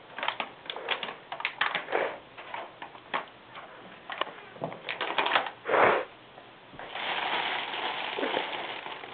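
Crinkling plastic: a candy wrapper crackling in small bursts as it is handled, then from about seven seconds a steady rustle of the clear cellophane wrap around an Easter basket as small hands pull at it.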